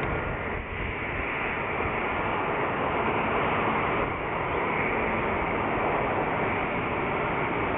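Steady roar of an Airbus A320neo's CFM LEAP-1A jet engines as the airliner moves along the runway, a smooth noise with no clear whine or pitch change.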